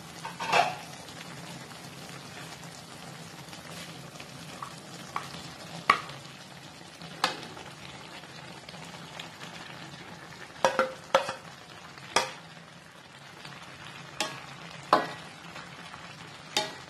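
Wok of teriyaki broth simmering with a steady hiss, while a spatula knocks and scrapes against the wok and a plate about a dozen times as mushrooms and carrot sticks are pushed in.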